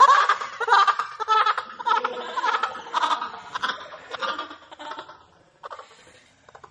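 A young man laughing in irregular bursts that fade away after about five seconds.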